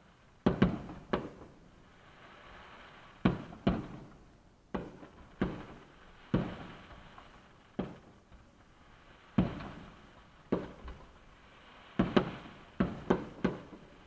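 Fireworks exploding overhead, heard from inside a parked car through the dashcam: more than a dozen sharp bangs at irregular intervals, some in quick clusters, each trailing off into a short rumbling echo.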